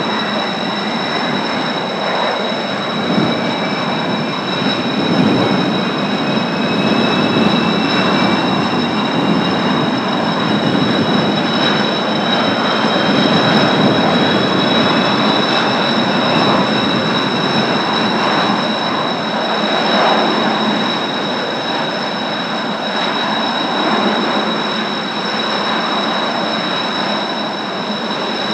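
Kawasaki T-4 jet trainers' twin turbofan engines running on the ground, a steady high whine over a dense rumble, with a fainter tone rising slowly in pitch during the first half. Strong wind gusts on the microphone are mixed in.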